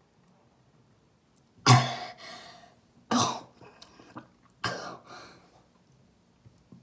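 A person coughing loudly three times, about a second and a half apart, in the middle of chugging water out of a shoe.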